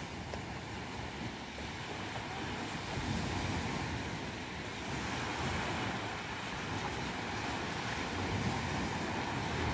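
Sea surf breaking and washing up a sandy beach on the incoming tide: a continuous rushing wash that swells louder about three seconds in and again near the end.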